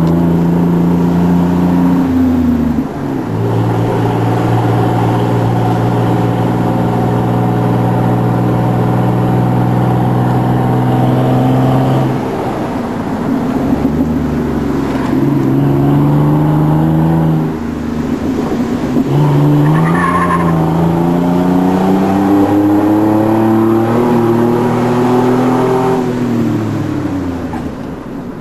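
Ford F-150's 4.2-litre V6 running through a Flowmaster dual exhaust, its engine note holding a steady pitch for long stretches with a few sudden drops. From about two-thirds of the way through the revs climb steadily, then fall away near the end.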